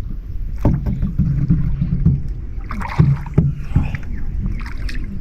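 A small boat underway on a river, with a steady low rumble and water noise, and a few sharp knocks on the boat about a second in and around three seconds in.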